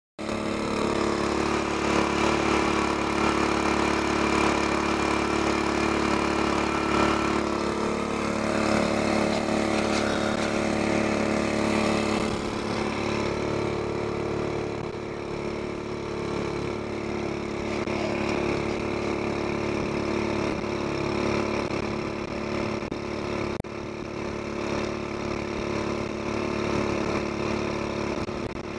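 Small outboard motor running steadily, pushing a jon boat up a river, with water rushing along the hull; its tone shifts a couple of times, about 7 and 12 seconds in.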